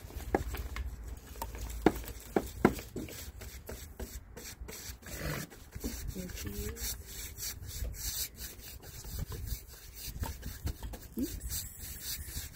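Paint roller on an extension pole rolling wood stain across porch deck boards: a steady rubbing, with a few sharp knocks in the first three seconds.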